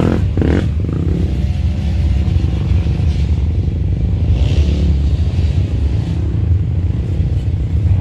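Vehicle engines running steadily in a low drone, with a few rises and falls in pitch as they are revved.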